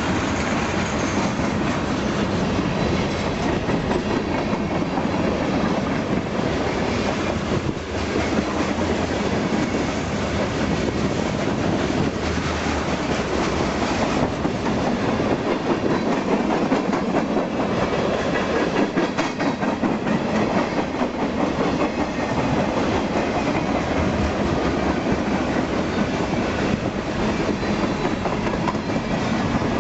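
Freight train rolling past, its wheels rumbling and clattering steadily on the rails.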